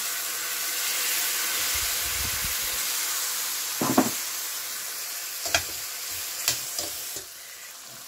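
Beef chunks, onion and flour sizzling in a hot stainless pot just deglazed with vinegar. The sizzle is steady, then drops off about seven seconds in. The metal tongs clink against the pot a few times in the second half.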